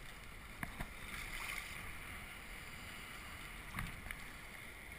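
Faint, steady lapping and sloshing of shallow sea water around a camera held at the surface, with a few small splashes or knocks against it.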